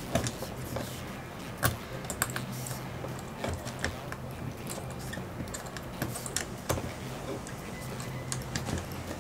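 Small irregular clicks and scrapes of a tool prying at a stuck 35mm adapter part inside a Yashica 635 twin-lens reflex camera.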